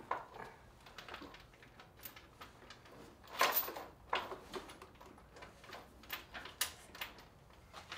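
Quiet hand work on hardware: scattered light clicks and knocks, with one louder knock about three and a half seconds in.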